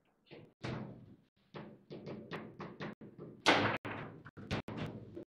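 Foosball (table football) in play: a quick series of sharp knocks and clacks as the ball is struck by the plastic figures on the rods and bangs around the table. The loudest hit comes about three and a half seconds in.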